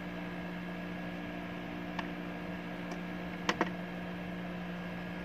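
Push buttons on an MPPT solar charge controller's front panel clicking: one press about two seconds in, then a quick double click about a second and a half later, over a steady low electrical hum.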